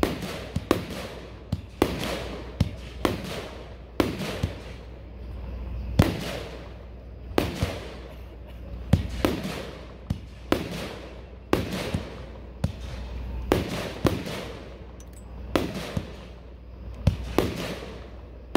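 Pyroland 'Good Vibes Only' 25-shot consumer fireworks cake firing one shot after another, about one a second. Each shot is a sharp launch thump and a bang, followed by a fading hiss.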